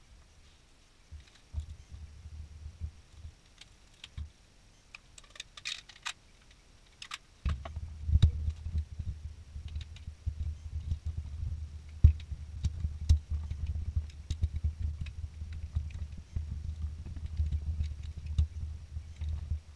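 Hand work on an ATV's wiring harness: small plastic clicks and taps of connectors and wires. From about seven seconds in, a dense run of dull knocks and low rumble comes as the machine is handled.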